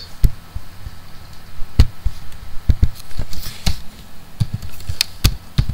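Computer keyboard keystrokes: about ten separate, irregular clicks with short pauses between them.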